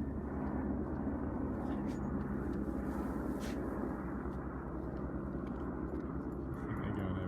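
A steady low engine drone with an even rushing noise over it, unchanged throughout.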